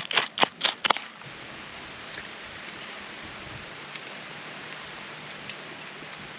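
A metal spoon scraping and clinking quickly in a stainless steel bowl of cereal and milk, about five sharp strokes, stopping about a second in. After that, a steady soft outdoor hiss with a few faint ticks.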